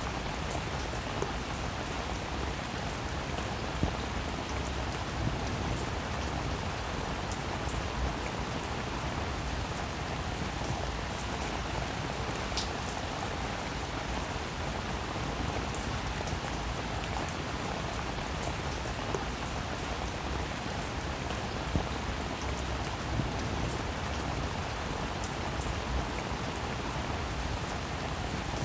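Steady rain falling on a surface, an even hiss with scattered individual raindrop taps and a few slightly louder drops.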